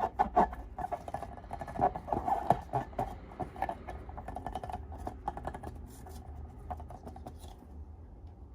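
Slime being squished and worked by hand: a busy run of small sticky clicks and crackles that thins out and grows quieter over the last few seconds.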